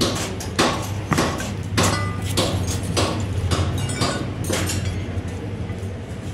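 Sharp metal knocks and clinks, about two a second and somewhat irregular, from truck torque rod parts and bushings being worked and tapped by hand, over a steady low hum.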